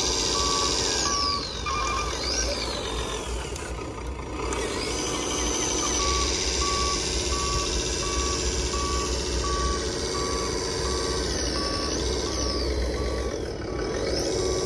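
Reversing beeper on a radio-controlled model vehicle, beeping steadily a little faster than once a second, over the high whine of small electric motors that rises and falls several times.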